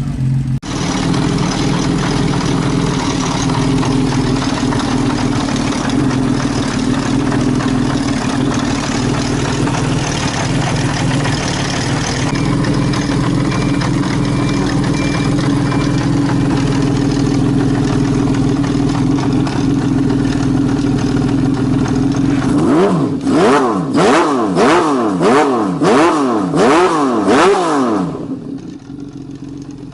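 Honda CBX 1050's air-cooled inline-six engine running at a steady pace, then revved up and down about seven times in quick succession before settling back to a quieter idle near the end.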